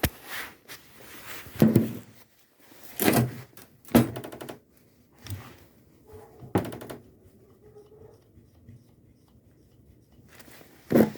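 A series of separate knocks and thuds, about six, spaced a second or more apart, two of them trailing into a short buzzing rattle. One of the loudest comes just before the end.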